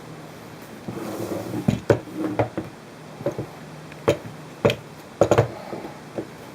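A GH-100 pistol grip being handled: a brief rustle, then a string of about ten sharp clicks and knocks, several close together about five seconds in.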